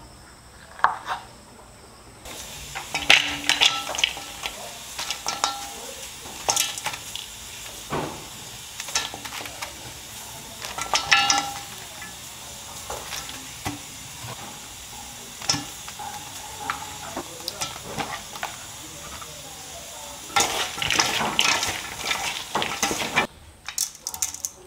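A metal spoon scooping mango flesh, then chopped vegetables being dropped into and tossed in a stainless-steel bowl: repeated clinks, taps and rustles of food and utensils against the metal, in irregular bursts.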